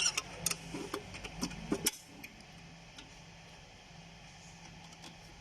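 Spring clips on a Maruti 800's dry-type air cleaner housing being snapped shut over the top cover: a quick run of sharp metal clicks and clacks over about the first two seconds. After that only a faint steady hum and a few light ticks.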